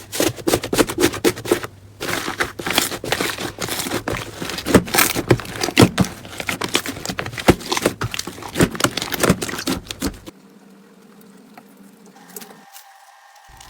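Slime squeezed and worked by hand, giving a dense run of crackles, clicks and pops that stops about ten seconds in, leaving only a faint hum.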